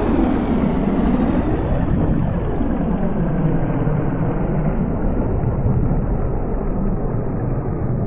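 Synthesized sci-fi spacecraft landing hum: a steady, deep rumbling drone with a swirling, sweeping character that slowly grows duller.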